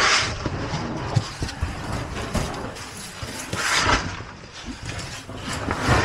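A person crawling through a tight cave passage: scuffing and scraping against rock, with scattered low knocks and three louder rustling bursts, near the start, about four seconds in and near the end.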